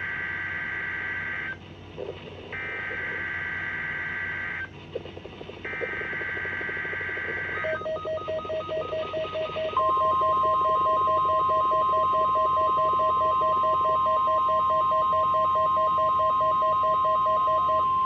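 NOAA Weather Radio Required Weekly Test: three bursts of SAME digital header tones, each about two seconds long with short gaps between them. These are followed by the steady 1050 Hz warning alarm tone, which starts about ten seconds in and is the loudest sound. From about eight seconds in, the weather alert radio sounds a rapid pulsing beep alongside it.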